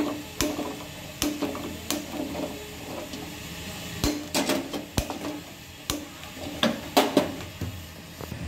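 A metal utensil clinking and knocking against a metal kadai on a gas stove: a string of irregular sharp taps, the loudest a few seconds in and again near the end.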